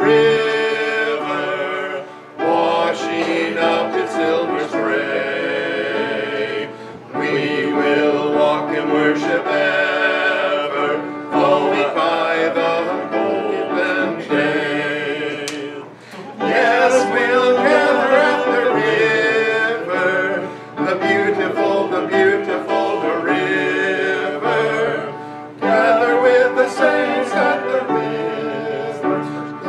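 A male vocal quartet singing a song together in harmony, in phrases with brief pauses between them.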